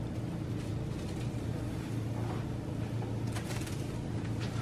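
Plastic wrap crinkling as it is pulled off the roll and stretched tight, a few brief crackles with the loudest about three and a half seconds in, over a steady low hum.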